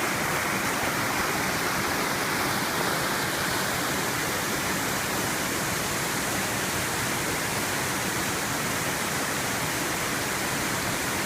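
Twin waterfall pouring, a steady, unbroken rush of falling water.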